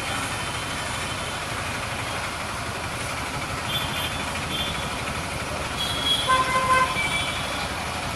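Steady road traffic noise with a vehicle horn honking about six seconds in, a short burst of beeps that is the loudest thing heard.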